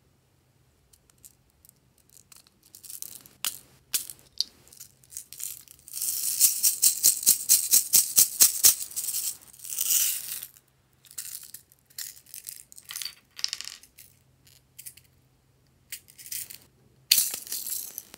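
Small plastic beads rattling inside a little plastic container as it is shaken in quick strokes for a few seconds, with clicks of the plastic parts as it is handled and opened. The beads are poured out near the end.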